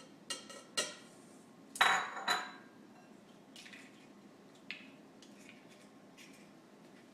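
Kitchen bowls and utensils clinking: two sharp clinks, then the loudest pair of ringing clinks about two seconds in, then a few lighter taps. This is the sound of cracked eggs being tipped from a separate bowl into the mixing bowl.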